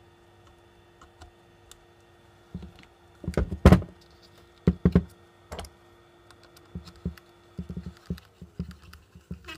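Clicks and knocks of a plastic tap body being turned and worked with pliers and a screwdriver, a scattered run of sharp strikes with the loudest about halfway in and a cluster of small ticks near the end.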